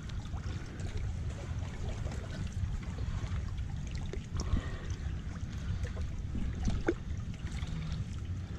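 River water lapping and trickling over a steady low rumble, with a few light clicks and knocks scattered through.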